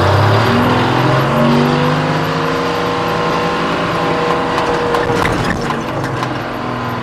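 White 4000 truck's two-stroke Detroit Diesel engine pulling away and driving past. The engine pitch climbs as it accelerates over the first second or so, then holds steady and eases off near the end.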